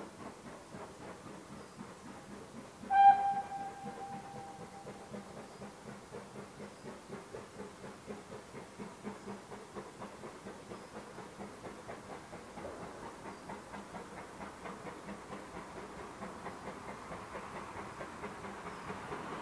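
GWR Small Prairie tank engine No. 5541 sounds its single-note whistle once, a short blast about three seconds in that rings on briefly, while its exhaust beats come on at a steady rhythm and grow louder as the unseen steam locomotive approaches.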